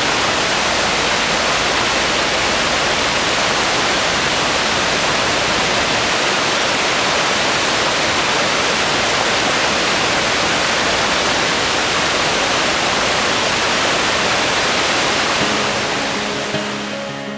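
Waterfall: a steady rush of water spilling over a rock ledge into a pool. It fades down near the end as soft guitar music comes in.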